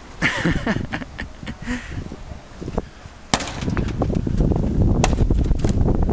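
A wooden lath whacking a cardboard-and-wooden-slat sculpture: two sharp hits, about three seconds in and about five seconds in, with lighter knocks before them. From the first hit on, a loud low rumbling noise runs under the strikes.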